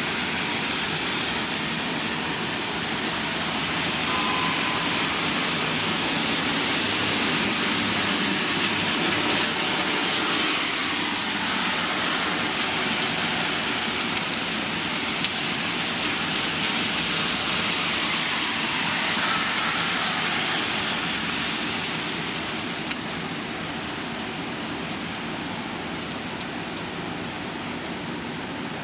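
Steady rain-like hiss that swells a little through the middle and eases slightly near the end, with a small click partway through.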